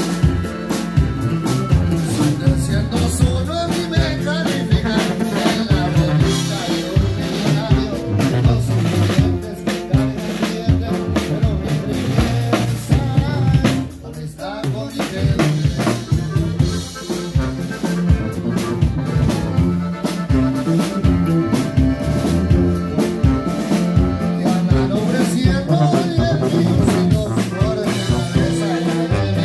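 Live norteño band music: a button accordion carrying the melody over a sousaphone bass line, strummed acoustic guitar and a drum kit keeping a driving beat. The band drops out briefly about fourteen seconds in, then comes straight back.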